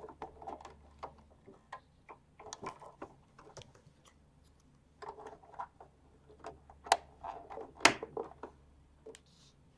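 Scattered small clicks and light plastic knocks as hands handle a sewing machine's bobbin area and thread, fitting a bobbin wound with elastic thread. Two sharper clicks come near the end.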